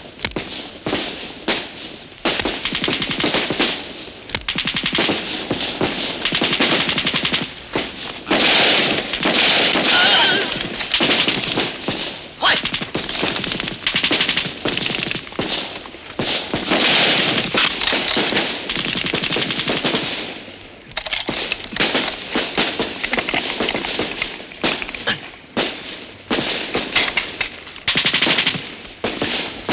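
Heavy battle gunfire on a film soundtrack: long, near-continuous bursts of rapid machine-gun and rifle fire, with a few brief lulls.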